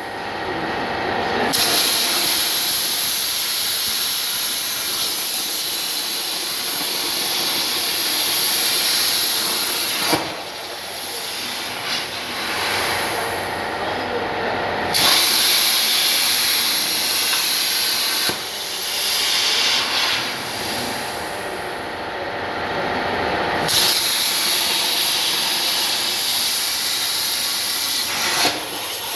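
CNC plasma torch cutting 2 mm steel sheet: a loud, steady hiss of the arc and air jet. It starts about a second and a half in, drops away around ten seconds in, then comes back at full strength twice, as the torch stops and restarts between cuts.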